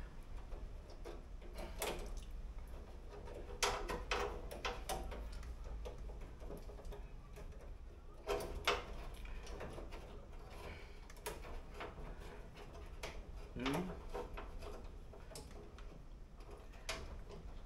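Irregular metallic clicks, taps and knocks of small door-mechanism parts and linkage being handled and fitted inside the bare steel door shell of a Toyota Corolla KE20.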